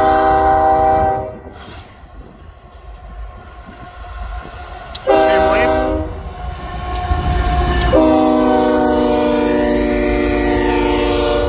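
Multi-note air horn of a BNSF coal train's lead diesel locomotive sounding the grade-crossing signal. A long blast ends about a second in, a short blast comes around five seconds, and a long blast starts about eight seconds in. Underneath is the low rumble of the approaching train.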